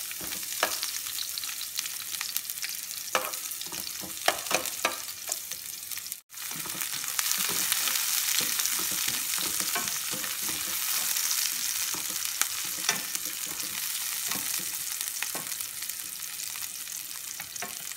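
Sliced onions sizzling in hot oil in a pan while being stirred with a spatula, with scrapes and taps of the utensil on the pan, most of them in the first six seconds. The sizzle breaks off for a moment about six seconds in, then carries on steadily.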